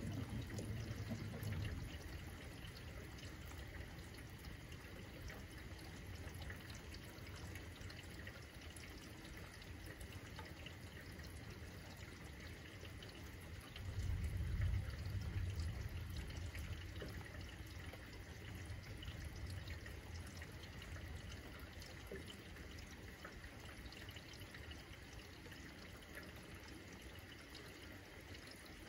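Steady rain falling, with thunder rumbling in the distance. One rumble fades away in the first couple of seconds, and a stronger one swells suddenly about halfway through, then dies away over several seconds.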